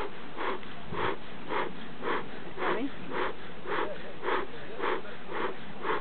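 Beekeeper's bellows bee smoker being pumped in a steady rhythm, each squeeze giving a short puff of air, about two puffs a second, to get the fuel smoking.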